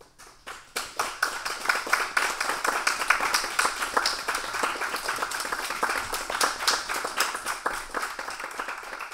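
A small group of people applauding, the claps building up within the first second and thinning out near the end.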